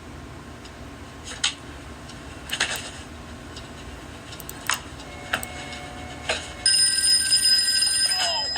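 A few scattered clicks and light knocks, then, about two-thirds of the way in, a telephone starts ringing loudly and steadily.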